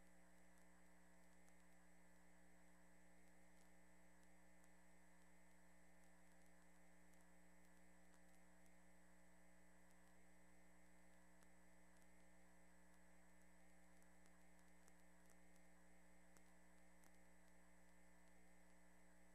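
Near silence: a faint steady electrical hum with a few faint ticks.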